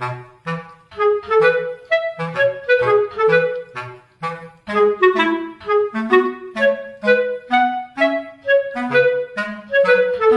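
Background music: a bouncy melody of short, quick notes over a plucked-sounding bass line.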